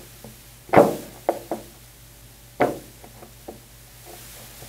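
A hex dumbbell set down on a load cell on a desk: two loud knocks a little under two seconds apart, with a few lighter taps as it is shifted into place.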